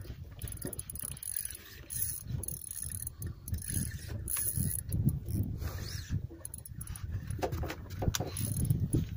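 Spinning reel clicking and whirring as line is worked in against a hooked fish on a bent jigging rod, over a steady low rumble of wind and water.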